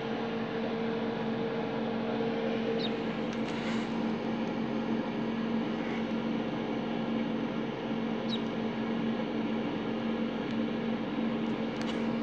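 A steady electrical hum and hiss, with a few faint, short, high falling peeps from ducklings about three seconds in, about eight seconds in and near the end.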